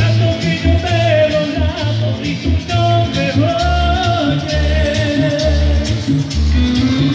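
Live Latin dance music with a high voice singing the melody over a steady, repeating bass beat.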